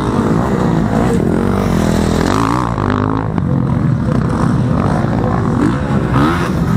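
Motocross dirt bike engines revving on the track, their pitch climbing and dropping again and again as riders accelerate and back off.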